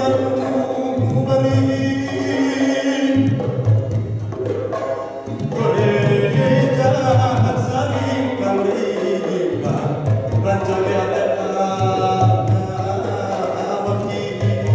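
Gamelan ensemble playing: bronze kettle gongs and metallophones ringing in layered, sustained tones over strokes of a kendang drum.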